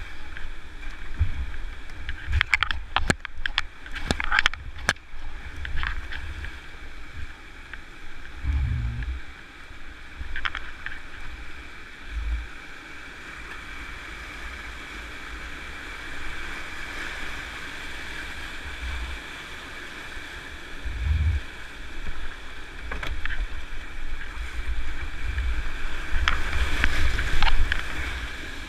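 Whitewater rapids rushing around a kayak, with paddle splashes and water slapping close to the camera. Several sharp knocks come in the first few seconds, a few dull thuds follow, and the rushing water is loudest near the end.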